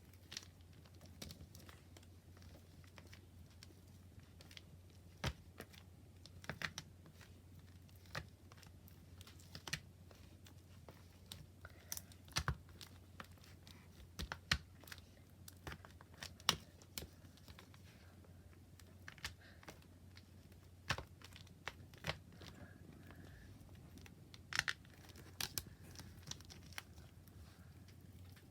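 Hands kneading and poking clear slime, giving irregular sticky clicks and pops, some in quick clusters, over a faint steady low hum.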